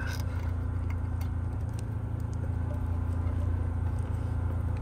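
A steady low hum, with a few faint clicks as small plastic wiring-harness connectors are handled and pushed together.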